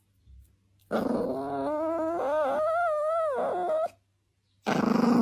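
Small black-and-tan Chihuahua-type dog vocalising: a drawn-out whine that rises and falls in pitch for about three seconds, then after a short pause a rougher growl near the end.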